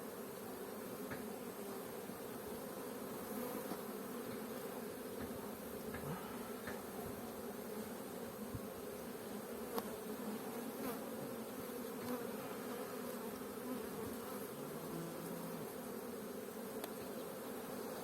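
Honeybee colony in an open hive humming: a steady drone of many bees, with a few light clicks now and then.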